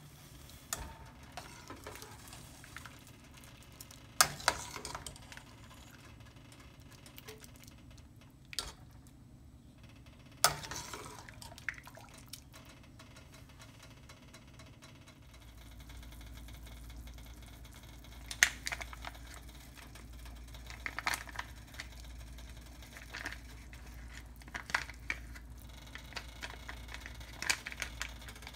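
Kitchen cooking sounds around a metal pot of boiling water and mutton: scattered sharp clinks and knocks of the pot and utensils over a steady low hiss, with a low hum coming in about halfway through.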